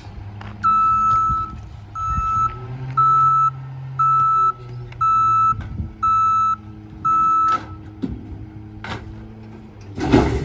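Rear-loader garbage truck's back-up alarm beeping seven times, about once a second, over the truck's engine running. Near the end, a loud crash as a wooden frame is thrown into the hopper.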